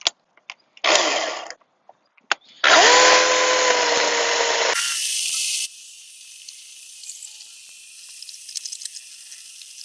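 Ryobi OCS1830 18-volt cordless chainsaw: a short burst about a second in, then the motor whirs up to speed a little under three seconds in and runs steadily for about two seconds before the sound drops away to a faint background.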